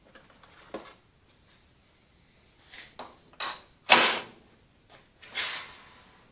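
A few separate clunks and short scrapes of tooling being handled at a metal lathe while it is set up to put a center in the stock, the loudest clunk about four seconds in.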